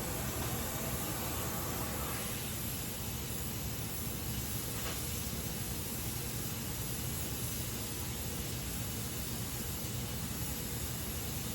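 Gas welding torch flame hissing steadily while aluminium is flame-welded.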